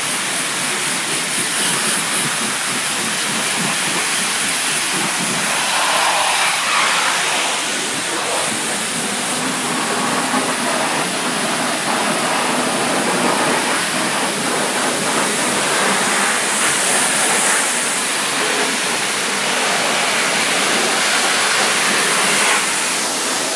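High-pressure water spray from a self-service car wash wand, a steady noisy spray with small swells in level throughout.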